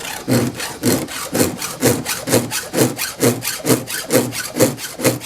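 Chainsaw chain being sharpened by hand with a file: steady, even rasping strokes, about two a second, each a push and a lighter return, as the file works across a cutter tooth.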